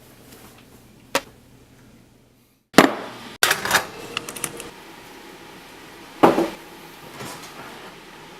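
A series of sharp knocks and clattering impacts: two loud hits close together, a quick run of smaller clicks, then another loud hit and a weaker one.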